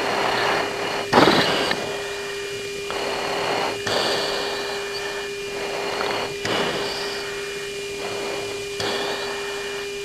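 Cockpit audio of a US Air Force fighter's recorded intercom and radio. A steady hum and rushing noise swell into bursts of hiss every couple of seconds, and the loudest burst comes about a second in.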